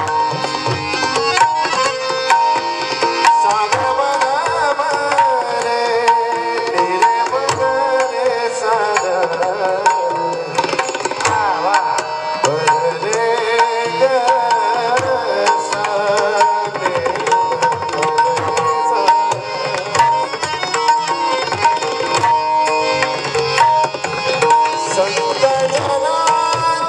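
Marathi devotional bhajan: a voice sings a winding melody over a steady held drone note and a continuous rhythm of hand-drum strokes.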